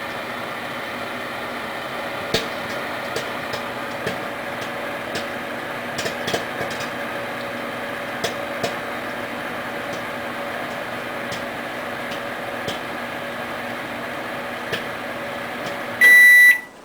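Microwave oven running with popcorn heating in a microwave popper bowl, the last kernels popping sparsely, about one pop a second: the batch is nearly done. Near the end the microwave's timer beeps loudly.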